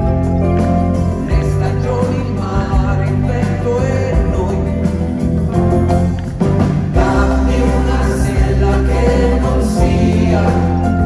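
Live concert music from a full band, with held bass notes, keyboards and a singing voice over them.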